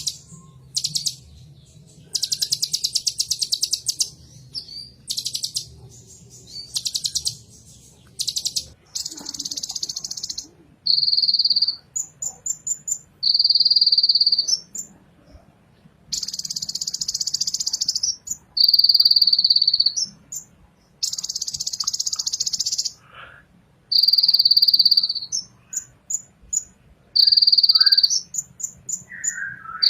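Kolibri ninja sunbird singing loudly: bursts of rapid, buzzy high trills a second or two long, alternating with long steady high whistled notes and short sharp chirps.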